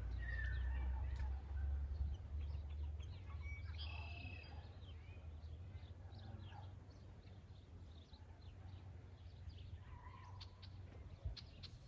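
Small birds chirping in short scattered calls, with a busier burst about four seconds in, over a low rumble that is strongest in the first few seconds.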